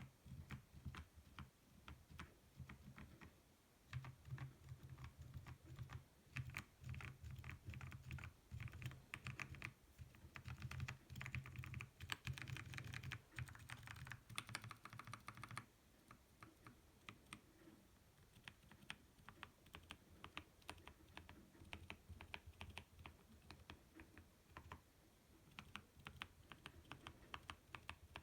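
Typing on a K87 tenkeyless mechanical keyboard with lubed Kailh Speed Copper switches: a fast, continuous stream of keystrokes. The keystrokes are densest and heaviest through the middle, then lighter and sparser in the second half.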